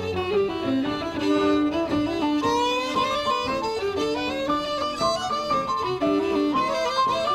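Fiddle playing a quick Irish traditional melody, with notes following one another in rapid succession at a steady level.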